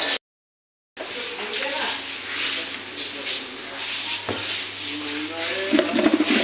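Rubbing and scraping handling noise from a phone camera being carried and swung about, with faint muffled voices that grow louder near the end. The sound cuts out completely for most of a second near the start.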